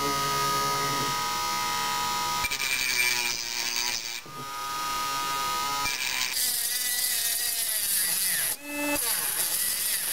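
Cordless Dremel rotary tool with a cutting wheel, run at low speed, cutting into a clay poker chip: a steady motor whine that dips briefly twice, about four seconds in and near nine seconds.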